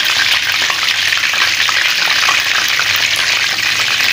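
Chickpea koftas deep-frying in hot ghee, a steady sizzle full of fine crackles.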